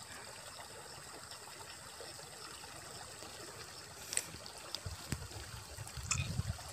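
River water flowing, faint and steady, with small trickles and splashes as a man wades and works a net in chest-deep water. A few brief sharp splashes about four and six seconds in, and some low bumps near the end.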